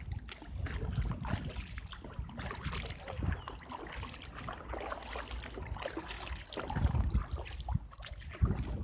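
Kayak paddle dipping and pulling through the water, with irregular splashing and dripping. A steady low rumble of wind on the microphone lies under it.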